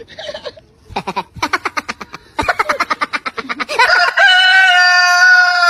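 A rooster crowing: a quick run of short clucking calls, then from about four seconds in one long, steady crow that drops off just before the end.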